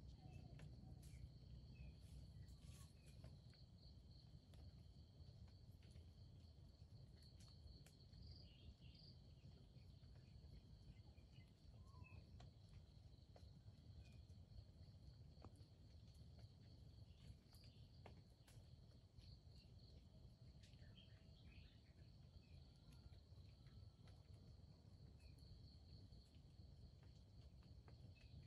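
Faint, steady high insect chirring, with a low rumble underneath and a few scattered soft ticks.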